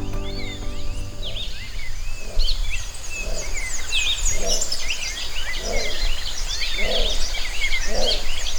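Tropical morning bird chorus: many birds chirping and trilling at once, with a lower call repeating about once a second. A steady low rumble runs underneath.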